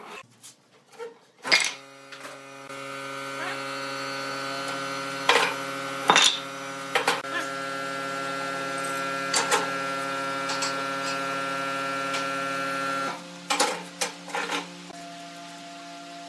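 A steady machine hum made of several even tones starts about a second and a half in, swells briefly, holds, and cuts off suddenly near the end. Sharp clicks and knocks of bar clamps and thin wooden slats being handled sound over it.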